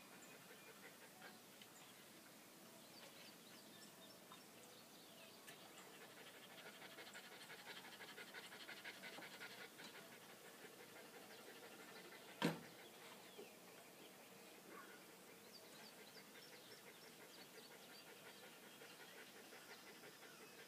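Small terrier panting faintly, a little louder in the middle, with one sharp click about twelve seconds in.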